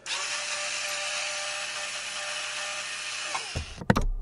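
A power tool running steadily with a whine, cutting off about three and a half seconds in. A deep boom and a couple of sharp knocks follow.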